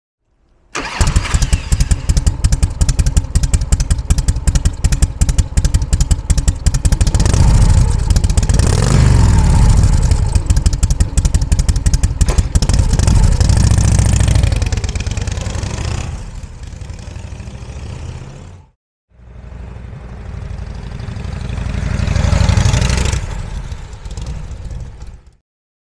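Harley-Davidson 1340 Evolution V-twin in a 1991 AME ST 802 chopper, running through chrome exhaust pipes. It idles with distinct firing pulses, then swells twice under the throttle. After a cut it pulls away, loudest about two-thirds in, then dies away into the distance.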